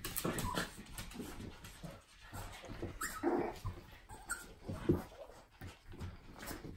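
Coton de Tulear puppies and their mother in rough play, with short puppy whimpers among the scuffling and paws on the floor and pads.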